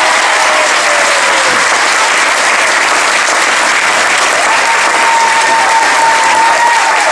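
Audience and cast applauding, loud, dense and steady.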